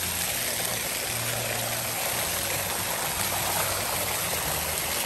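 Splash pad ground jets spraying water onto wet concrete: a steady rush of falling water.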